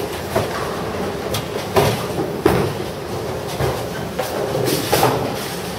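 Bowling alley lanes: the steady low rumble of bowling balls rolling down wooden lanes, broken by several sharp clatters and knocks of balls and pins.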